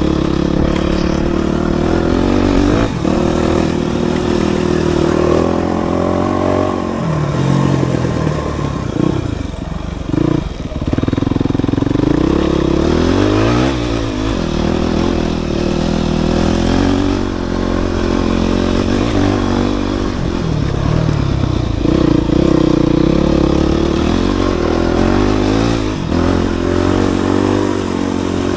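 Dirt bike engine running hard under the rider, its pitch rising and falling again and again with the throttle, with occasional knocks and clatter from the bike.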